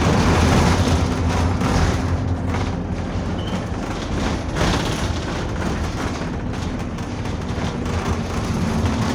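Bus engine and road noise heard inside the passenger saloon while the bus is moving, a steady low drone with a higher engine tone that fades out about three seconds in and comes back near the end. Scattered thuds and rattles from the bus body run over it.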